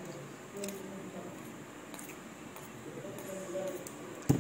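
Eating a balut with a metal spoon: quiet mouth sounds and a few faint spoon clicks. Near the end comes a sharp thump, the loudest sound.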